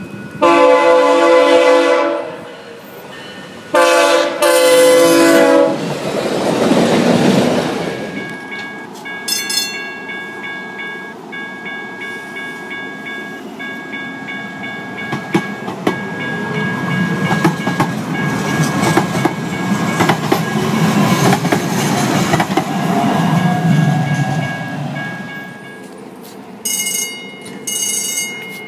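A locomotive air horn sounds two loud chord blasts as the train approaches, followed by the rush of the train passing. Then an electric light rail train runs with a steady high whine and a rumble that swells and fades, and two short high signal tones near the end.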